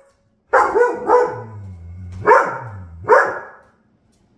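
Dogs barking and growling while play-fighting over a toy: four loud barks, with a low growl running between the second and third.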